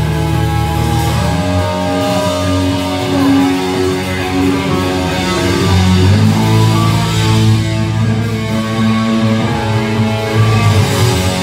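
Live heavy metal band playing loudly: distorted electric guitar and bass holding long chords, with the chords changing a couple of times.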